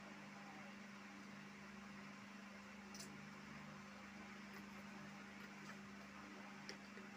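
Near silence: room tone with a steady low hum and faint hiss, broken by two faint clicks, one about three seconds in and one near the end.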